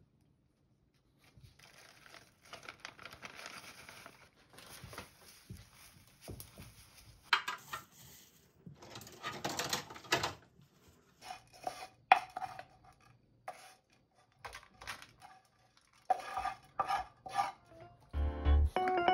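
Rustling and light knocks as a gloved hand presses rice balls and rolls them in crumbled seasoned laver in a glass bowl, with the bowl now and then giving a short ringing clink. Music comes in near the end.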